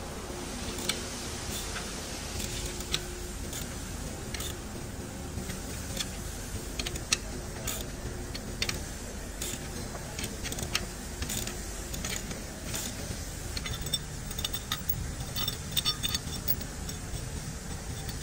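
Hand ratchet wrench clicking in short, irregular runs and small steel parts clinking as bolts are run in by hand, over a steady low workshop hum.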